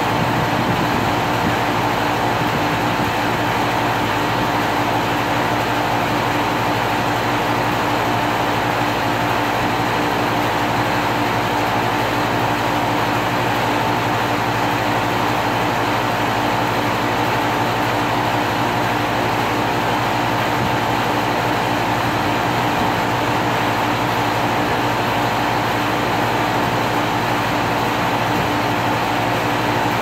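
2001 Carrier 5-ton central air conditioner running steadily: a constant hum from the unit with its fan's rushing noise, unchanging throughout.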